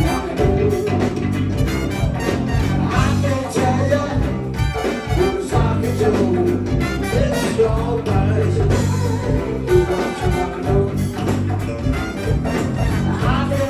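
Live go-go band playing a steady, bass-heavy groove.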